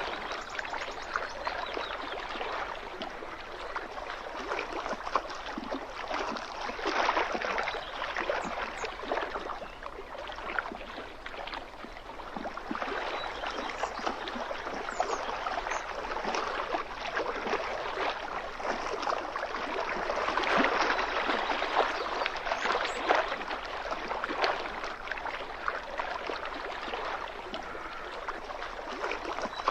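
Small waves lapping and splashing along a lake shoreline: a steady wash of water with many little splashes, swelling louder for a few seconds about two-thirds of the way through.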